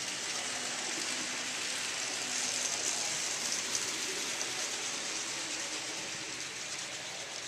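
HO scale model freight train rolling past on its track: a steady noise of metal wheels running on the rails, with faint small clicks.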